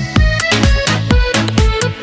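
Background electronic dance music with a steady kick drum, about two beats a second, under held synth chords.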